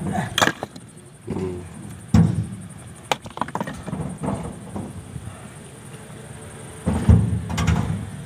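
Scattered knocks and clacks of broken rock being handled, a few sharp ones about two and three seconds in, and a louder heavy thud about seven seconds in.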